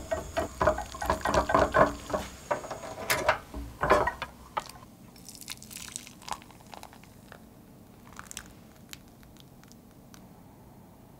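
Wire whisk stirring foaming browned butter in an aluminium saucepan: a quick run of ticks of the whisk against the pan over the crackle of the butter. After about four seconds this stops, and the brown butter is poured into a glass bowl with faint scattered crackles and pops of its foam.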